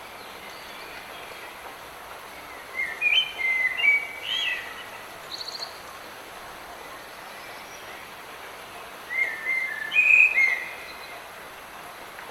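Steady hiss of light rain in a forest, with a songbird singing two short warbled phrases, one about three seconds in and one about nine seconds in, and a brief fast trill between them.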